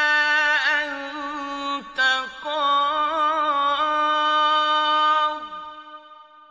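A man's solo voice reciting the Quran in the melodic mujawwad style: long held notes with wavering ornaments, a brief break about two seconds in, then a second held phrase that falls away just after five seconds, leaving a reverberant tail dying out.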